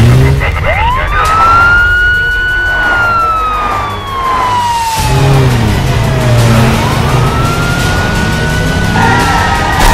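Wailing emergency-vehicle siren: two cycles, each rising quickly to a high pitch, holding briefly, then slowly falling, the second starting about seven seconds in. Music plays underneath.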